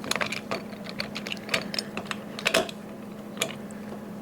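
Irregular light clicks and taps of metal doorknob hardware being handled while a fine-thread mounting screw is lined up with its hole, densest in the first two and a half seconds, over a faint steady hum.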